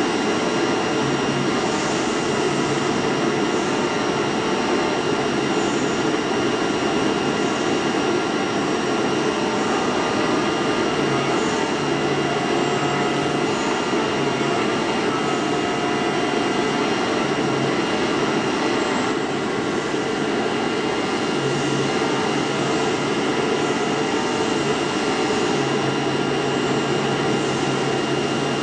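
DCZ70 flatbed oscillating-knife cutting machine running: a steady whirring like a vacuum blower, with a low hum that switches on and off in short stretches as the machine works.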